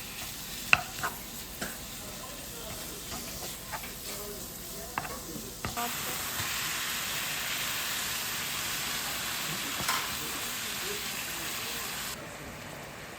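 Utensil clicks and knocks against a pan, then food sizzling in a hot frying pan from about six seconds in, louder and steady, cutting off near the end.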